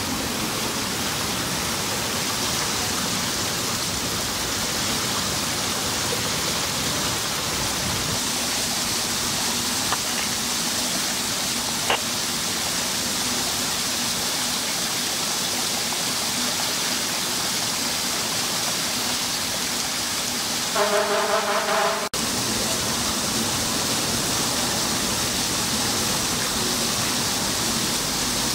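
Water rushing steadily in a flooded building, a hissing flow with no let-up; a frozen, burst pipe is the possible cause. About three-quarters of the way through, a short pitched tone sounds for about a second.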